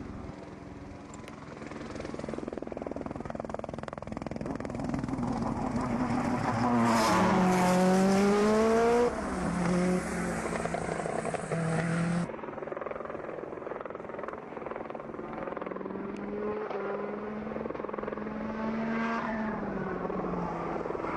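Peugeot 208 T16 Pikes Peak race car's twin-turbo V6 revving hard up and down through the gears. It is loudest about seven to nine seconds in as it passes close and its pitch sweeps down. The sound changes abruptly about twelve seconds in.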